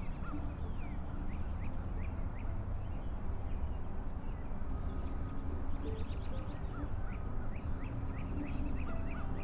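Outdoor bird calls: many short rising chirps, with a rapid high trill in the middle, over a steady low rumble.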